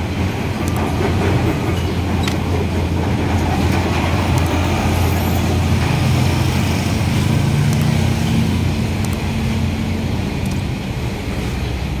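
Steady low engine rumble from vehicles and road-construction machinery running close by: a pickup truck, an excavator and a wheel loader.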